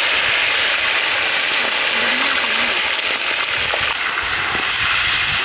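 Large batch of tilapia pieces deep-frying in a wide shallow pan of hot oil: a loud, steady sizzle.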